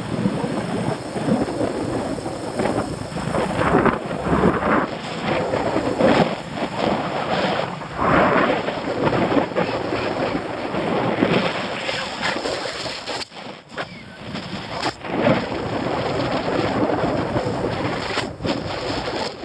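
Wind buffeting the microphone: a gusty rushing noise that swells and falls, with a couple of brief lulls in the second half.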